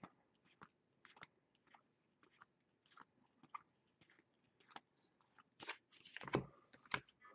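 Football trading cards being flicked through one by one in the hand, a soft click about every half-second as each card slides off the stack. A louder rustle and a few sharper clicks about six seconds in as the stack is moved.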